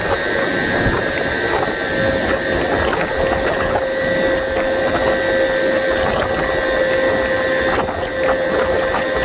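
Siemens SWT-2.3 wind turbine's drivetrain running at close to full power, heard inside the nacelle: a steady machine whine of several held tones over a loud even rush.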